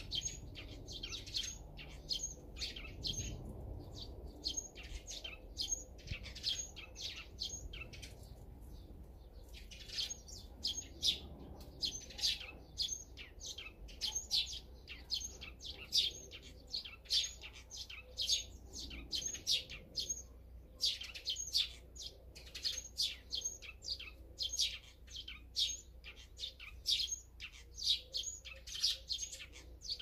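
Small songbirds chirping with short, high, repeated calls, about two a second, with a brief lull about eight seconds in.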